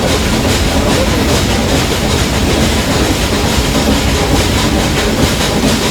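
Ooty toy train of the Nilgiri Mountain Railway running along the track, heard from aboard: a steady, loud rumble of the carriages with the clickety-clack of the wheels over the rail joints.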